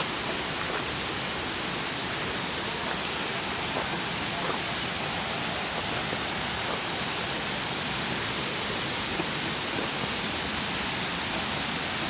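Steady, even rush of water falling over a dam spillway.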